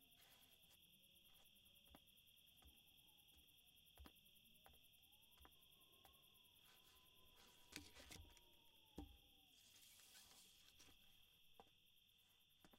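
Faint night ambience of crickets chirping steadily, with a few soft taps and clicks, the clearest about eight and nine seconds in.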